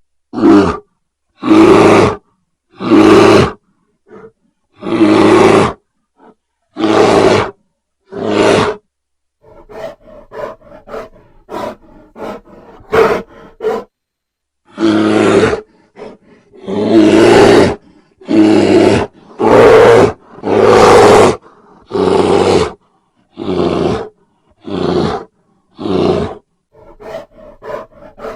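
Grizzly bear roaring again and again, each loud roar lasting about half a second to a second with short gaps between. A stretch of shorter, quieter grunts comes in the middle before the loud roars resume.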